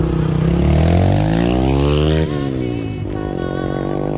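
A motor vehicle engine accelerating, its pitch climbing for about two seconds, dropping sharply at a gear change, then climbing again.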